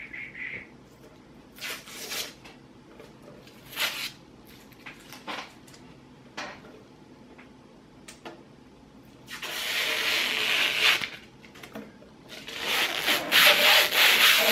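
Packaging rubbing and rustling against a plastic D-Link NAS enclosure as it is unwrapped and handled. A few short scrapes come first, then two longer rubbing scrapes of a second or two each in the second half.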